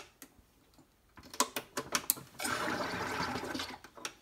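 Sodastream Spirit carbonating a bottle of water: a few sharp clicks as the carbonation button is pressed, then a burst of about a second and a half of CO2 gas rushing and bubbling into the water.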